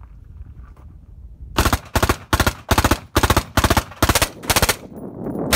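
Suppressed full-auto fire from a 10.3-inch AR-type rifle with a Thunder Beast DSU suppressor, shooting 5.56 M193: about eight short rapid bursts over three seconds, starting about a second and a half in.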